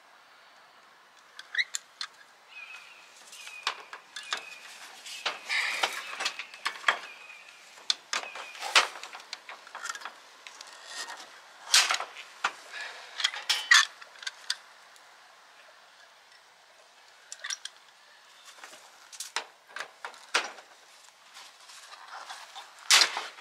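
Hand pop-rivet tool setting 3/16-inch rivets: clicks and metallic clinks as the handles are squeezed over and over, with a few louder sharp snaps as the rivet mandrels break off.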